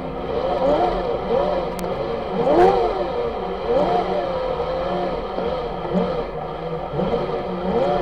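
Segway's electric drive motors whining, the pitch rising and falling over and over as the rider speeds up and slows.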